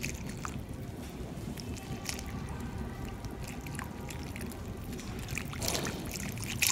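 Milk trickling from a glass jug into a glass bowl while a silicone whisk stirs it into a cocoa and cornflour batter, with faint small clicks of the whisk against the glass.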